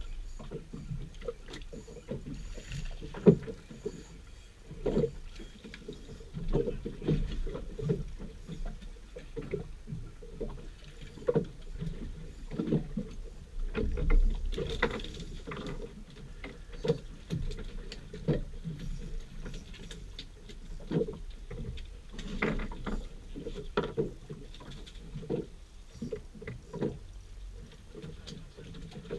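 Water slapping and knocking against the hull of a drifting fishing boat: irregular low thumps over a low rumble, with a sharp knock about three seconds in.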